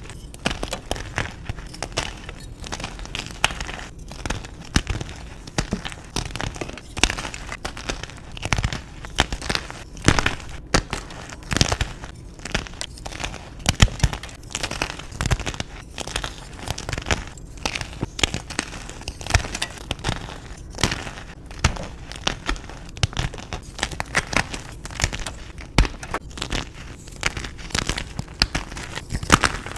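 Reformed gym chalk being crumbled and crushed: a dense, irregular run of small crunches and crackles, with sharper snaps every second or so.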